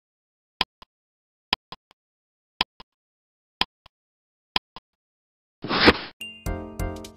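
Countdown timer sound effect: five clock ticks about a second apart, each a sharp tick followed by a softer one. As the count runs out, about five and a half seconds in, a short burst of noise sounds, and then a jingle of chime notes begins.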